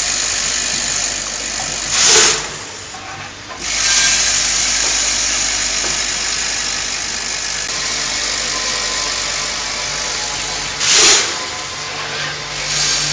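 Coffee bean weighing and filling machine running steadily, with two short, loud bursts of noise about nine seconds apart, one about two seconds in and one near the end.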